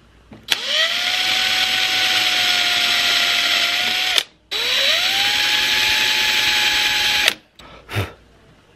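Power drill boring two pilot holes through a metal hinge's screw holes into a wooden lid. There are two runs of about three and a half and three seconds, with the motor rising quickly to speed and then holding steady. A light knock comes near the end.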